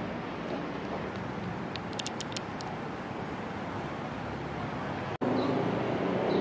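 Steady city traffic noise, with a quick run of faint high clicks about two seconds in. It cuts out for an instant about five seconds in and comes back louder.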